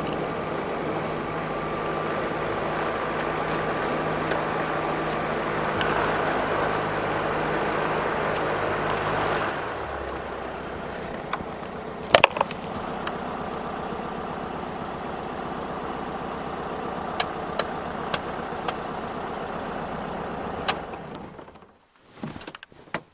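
Jabiru light aircraft engine running with the propeller turning as the aircraft taxis on grass. About ten seconds in it settles to a quieter, lower idle, with a few sharp clicks. Near the end the engine is shut down and the sound dies away.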